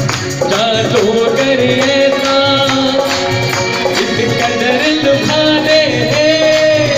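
Live devotional bhajan: a male voice singing a held, wavering melody into a microphone over steady rhythmic percussion.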